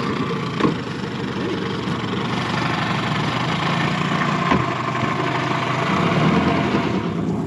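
Small boat's outboard motor running steadily at low speed, with a couple of brief knocks.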